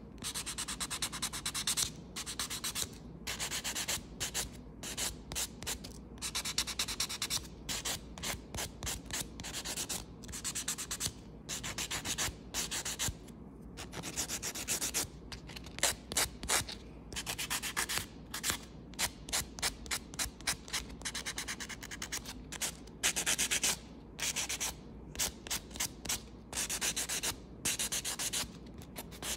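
Nail file rasping across a fingernail in quick, repeated back-and-forth strokes, in runs broken by short pauses.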